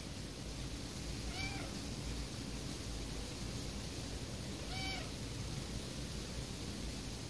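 A kitten meowing twice, two short high calls about three and a half seconds apart, over a steady background hiss.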